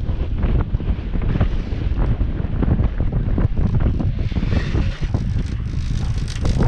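Strong wind buffeting the camera microphone on a sailing yacht under way, a loud low rumble over the wash of choppy sea. A brief louder hiss comes about four seconds in.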